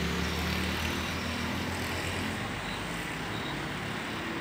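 A road vehicle's engine hum fading away over the first second or so, leaving steady street traffic noise.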